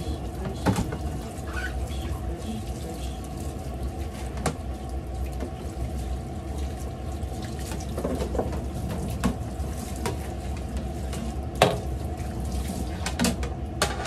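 Kitchen tap running steadily into a sink as dishes are rinsed, with a few short knocks and clatters of trays and dishes against the sink; the loudest knock comes late.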